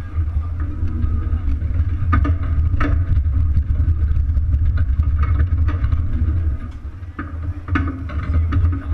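Wheeled racing outhouse rolling over street pavement: a steady low rumble with frequent rattles and knocks from the rig.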